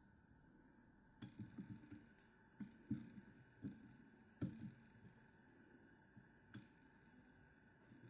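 Faint, scattered clicks and light taps of hands working tying thread with a bobbin holder at a fly-tying vise, mostly in the first five seconds with one more a little past six seconds, over quiet room tone.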